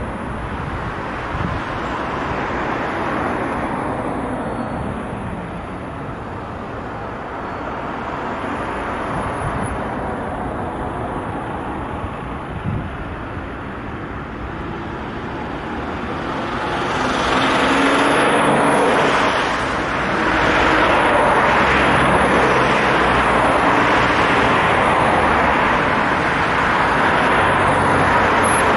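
Road traffic on a multi-lane city road: cars and vans passing, with steady tyre and engine noise. It grows louder and fuller about two-thirds of the way in and stays that way.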